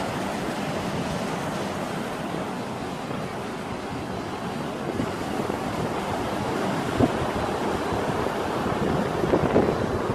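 Rough sea surf breaking along a sandy beach, a steady wash of waves heard from above. Wind buffets the microphone in sharp gusts about two-thirds of the way in and again near the end.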